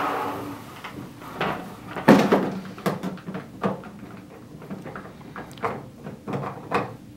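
Scattered plastic knocks and clicks as the parts of a plastic poultry drinker are handled and a screw is fitted through the bucket into the base. The loudest knock comes about two seconds in.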